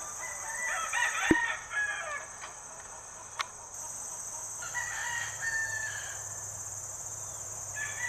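Game roosters crowing, two crows in a row and a third starting near the end. A sharp knock about a second in, during the first crow.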